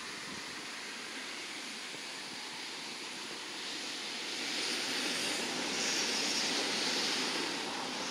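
Lockheed P-3 AEW&C Orion's four Allison T56 turboprops at takeoff power as it climbs out, a steady rushing roar that swells about halfway through and eases near the end.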